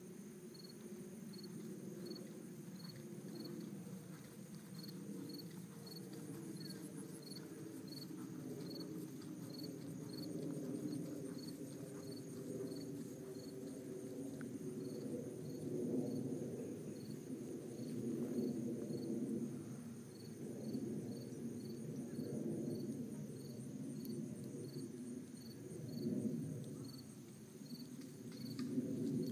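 Insects calling in a grassy field: a steady high-pitched chorus, with one short high chirp repeating a couple of times a second. Under it, a low uneven rumble swells now and then and is the loudest part.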